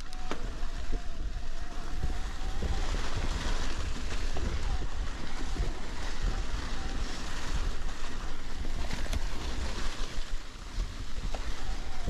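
Mountain bike riding over a trail covered in dry fallen leaves: a steady rush of tyres rolling through the leaves with small clicks and rattles from the bike, under heavy wind buffeting on the microphone.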